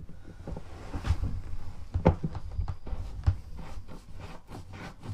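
Plastic drain fitting being turned by hand on its threads: irregular scraping and clicking of plastic on plastic, with sharper knocks about one, two and three seconds in. It is being worked back and re-threaded because it went on crooked and didn't feel right.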